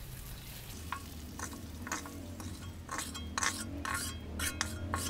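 Long metal spatula scraping and scooping fried chillies out of an aluminium wok: a run of sharp scrapes against the pan from about a second and a half in, over a light sizzle of hot oil.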